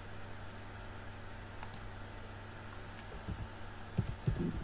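Keystrokes on a computer keyboard: a couple of faint clicks at first, then a quicker run of key presses from about three seconds in, over a steady low hum.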